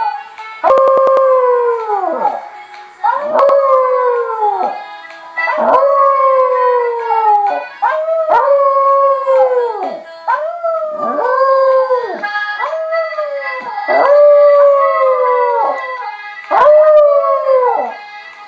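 Jack Russell terrier howling along to dance-pop music from a laptop, a long howl every two to three seconds, each one dropping in pitch as it ends.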